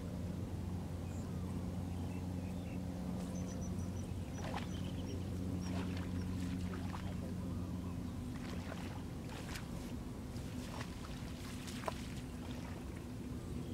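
Shallow muddy water splashing and sloshing lightly as people wade and handle a cast net, with scattered small splashes and drips, mostly in the second half, over a steady low hum.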